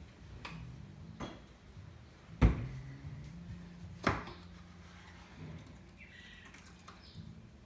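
Knocks and clunks of the air fryer's deep dish being handled for washing: two loud clunks about 2.5 and 4 seconds in, with lighter knocks before them.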